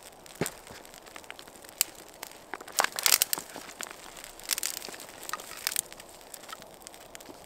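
Small kindling fire of birch bark and tinder crackling, with irregular sharp pops that bunch up about three seconds in and again a little later.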